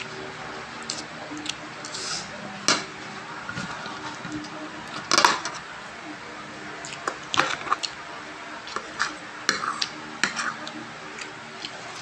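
Metal spoon and fork clinking and scraping against a plate while eating, in scattered sharp clicks, the loudest about five seconds in and a quick run of them in the second half.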